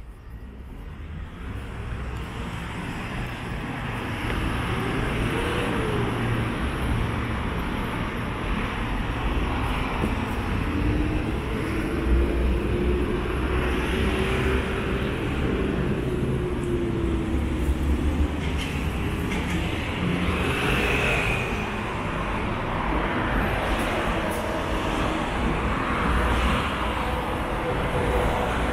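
City street traffic: a steady low rumble of road vehicles, with cars and buses running and passing on the road alongside.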